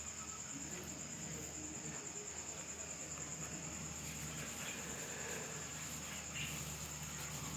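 Night insect chorus: a steady, high-pitched trill that carries on without a break.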